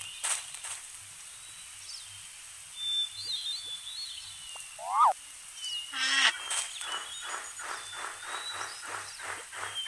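Outdoor nature ambience of bird calls: thin high whistles and chirps, a short rising call about halfway through that is the loudest sound, and a trilled call just after. A rapid rhythmic pulsing of about three beats a second drops out in the middle and returns near the end.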